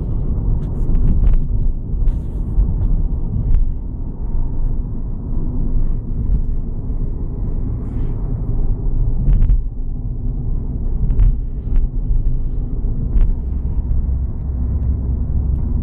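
Inside the cabin of a Škoda Rapid TDI diesel car on the move: a steady low rumble of engine and road noise, with a few light clicks.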